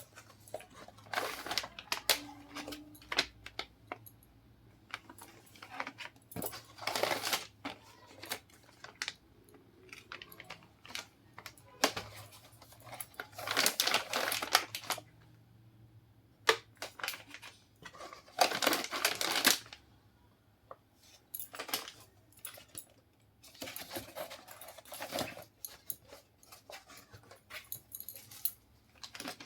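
Plastic packaging crinkling and rustling in irregular bursts, with small clicks and knocks as packed items are handled.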